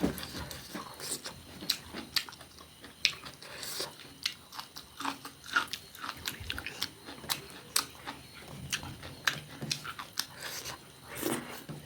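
Close-miked biting and chewing of crunchy food, a rapid irregular series of crisp crunches and mouth clicks.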